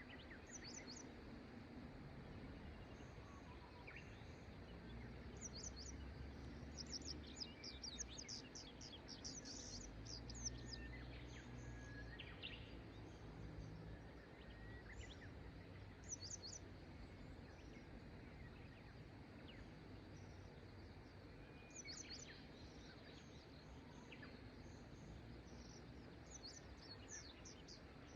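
Faint birdsong: small birds giving clusters of short, high chirps on and off, over a soft steady rush of river water.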